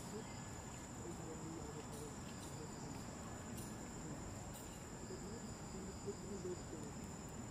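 Insects shrilling in a steady, unbroken high whine.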